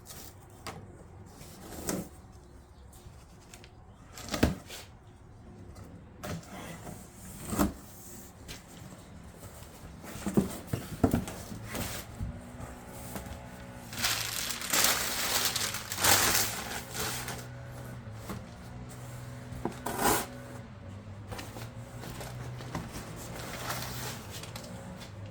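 Packaging being opened and handled: rustling and crinkling, with scattered knocks and clacks of the parts being moved. There is a longer stretch of rustling about fourteen seconds in, and a low steady hum starts about twelve seconds in.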